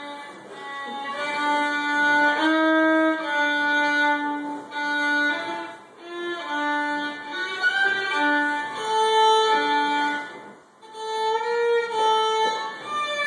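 Solo violin bowed by a young player, a slow melody of held notes. The playing breaks off briefly twice, about six and eleven seconds in, then carries on.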